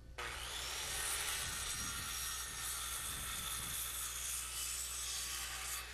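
Power saw running steadily as it cuts through the end of a wooden rafter, trimming it to length. It starts abruptly and stops just before the end.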